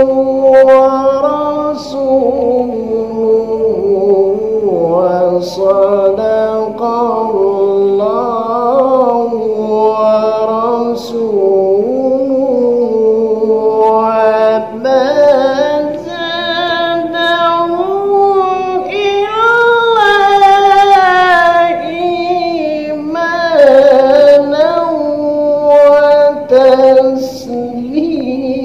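A man reciting the Quran in melodic tilawah style, one unaccompanied voice holding long ornamented notes with wavering, bending pitch. The melody climbs to its highest notes around the middle and falls back toward the end.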